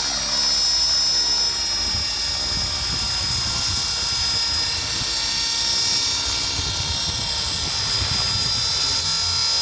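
Align T-Rex radio-controlled model helicopter running at flight speed as it lifts off and hovers. A steady high-pitched whine sits over a fluttering low rotor thrum.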